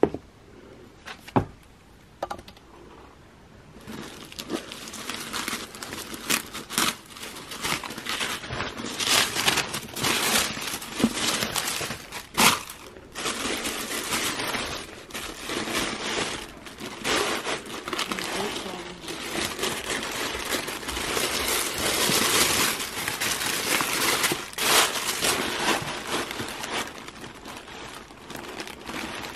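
A few sharp taps, then, from about four seconds in, tissue paper rustling and crinkling steadily as hands unfold the wrapping inside a gift box.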